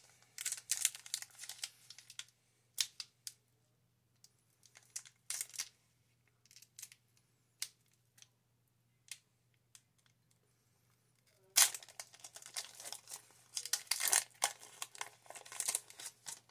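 Foil wrapper of a Pokémon booster pack being torn open and crinkled by hand, with the cards pulled out of it. There is a short burst of rustling at the start, then scattered small crackles, then a longer, louder spell of crinkling near the end.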